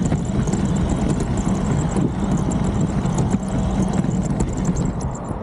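Small RC car running over pavement: a steady, loud drivetrain and tyre noise with a constant rattle of small clicks, easing off about five seconds in.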